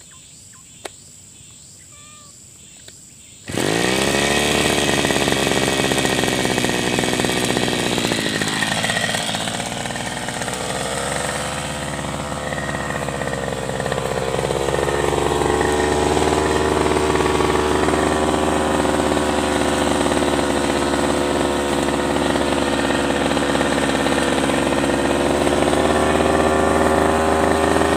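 Backpack brush cutter engine, coming in suddenly after a few quiet seconds and revving up, then running steadily at high speed, its pitch sagging and recovering a couple of times as the blade cuts grass.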